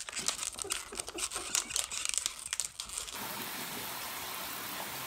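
Plastic wrapping crinkling and crackling in quick irregular clicks, then an abrupt change about three seconds in to a steady hiss.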